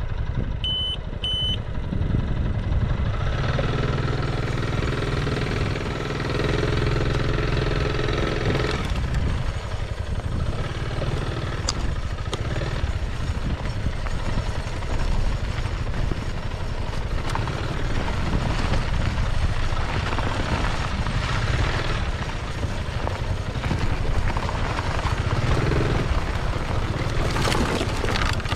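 Piaggio MP3 500 three-wheel scooter's single-cylinder engine running as it rides off along a dirt road, with tyre and gravel noise from the front wheels. Two short high beeps sound near the start, and a brief rush of noise near the end as a front wheel kicks up dirt.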